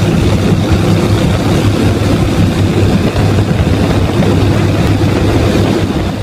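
Gator-Tail surface-drive mud motor running steadily under way, a loud low drone with a hiss over it.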